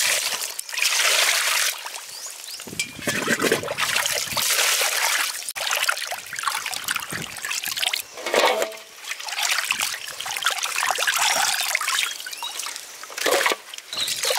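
Water splashing and dripping in a steel basin as cleaned fish are washed by hand, lifted out and dunked back, in irregular surges.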